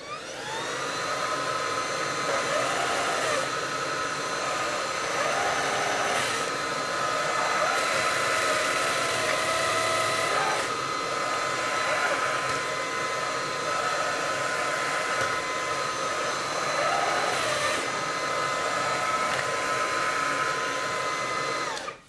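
Xiaomi G11 cordless stick vacuum switched on, its motor whine rising as it spins up, then running steadily until it is switched off near the end. A lower hum comes and goes several times as the floor head is twisted left and right: the brush-roll motor spinning briefly and stopping, which the owner takes for a bad contact in the wiring at the head's joint.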